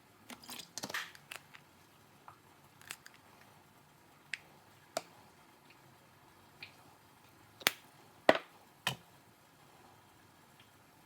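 Kitchen food-preparation sounds: a short rustle and scrape near the start, then scattered light clicks and taps, the loudest three close together about eight seconds in.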